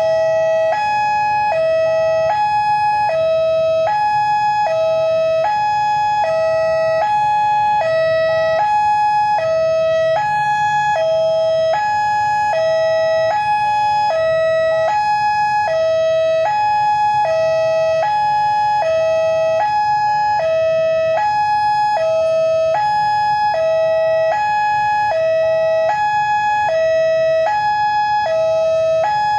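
Railway level-crossing warning siren, the crossing's original unit, sounding a steady electronic hi-lo two-tone that alternates between two pitches about once a second. It signals that the crossing is closing for an approaching train.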